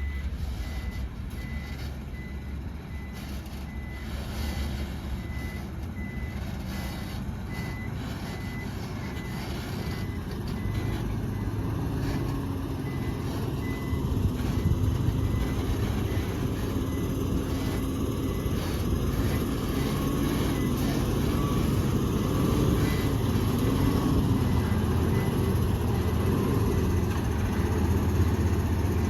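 Diesel dump truck reversing: its backup alarm beeps at an even pace over the running engine for the first half, then the beeps stop and the engine grows louder, its pitch rising and falling as it works.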